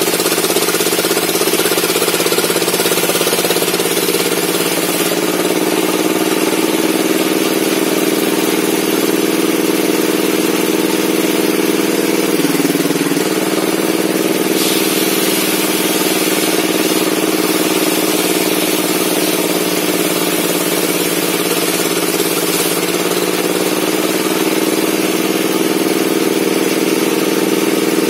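Table saw running steadily with a continuous hum and whine. Its pitch sags slightly now and then and drops briefly about halfway through.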